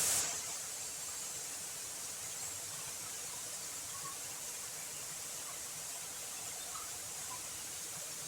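Steady high hiss of outdoor ambience, with a few faint short chirps scattered through it.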